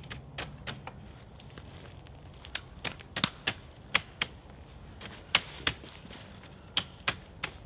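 Dry sticks clicking and cracking in irregular sharp knocks and snaps as thin branches are pushed and woven between the upright stakes of a hedge, the loudest cracks in the middle of the stretch.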